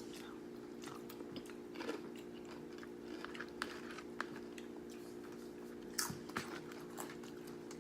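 Close-up chewing and crunching of Nacho Cheese Doritos nachos, with scattered sharp crunches, the loudest about six seconds in. A steady low hum runs underneath.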